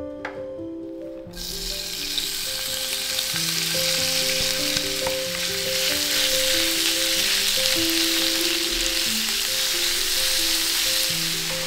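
Ground beef sizzling in a hot cast-iron skillet, stirred with a wooden spatula. The sizzle starts suddenly about a second in and grows over the next few seconds.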